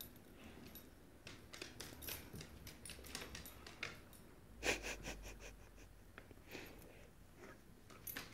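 A pit bull and a small wiry terrier snuffling and breathing hard as they tug and chew at a rope toy, with scattered rustles and clicks. There is a louder bump about halfway through.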